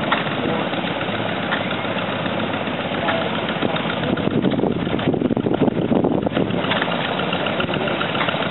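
An engine idling steadily, its sound fuller for a couple of seconds in the middle.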